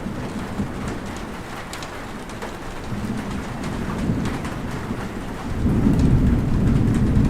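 Steady rain falling, with a low rumble of thunder that swells up a little over two-thirds of the way through and keeps going.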